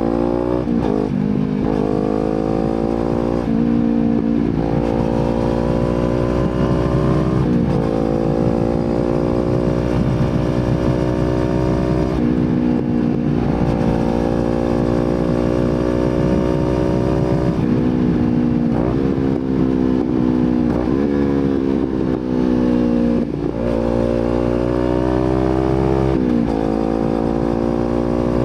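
Kawasaki Z250 engine through an aftermarket slip-on exhaust, running under way. Its pitch climbs steadily and then drops sharply several times, as with gear changes while accelerating.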